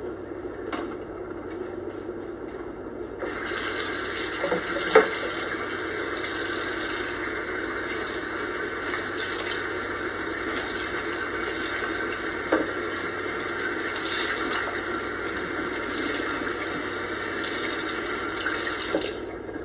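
Kitchen tap running into a sink while something is washed under it. The steady hiss starts about three seconds in and stops shortly before the end, with a couple of brief knocks along the way.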